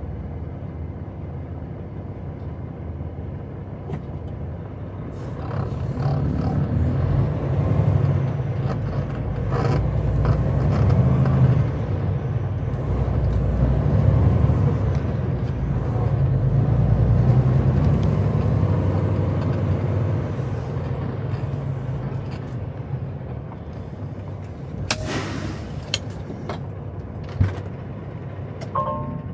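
Semi-truck diesel engine running, its low rumble growing louder for about fifteen seconds and then easing off, with a short sharp burst of noise near the end.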